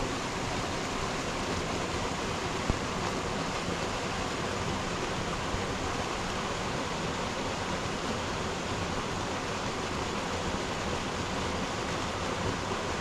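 Brook water pouring out of a corrugated metal culvert and splashing into the pool below: a steady rushing of falling water. One brief tick sounds about two and a half seconds in.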